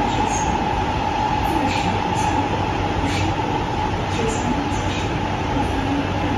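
Inside a CRRC Changchun Type A metro car running between stations: a steady rumble of wheels and running gear, with a constant high hum running through it.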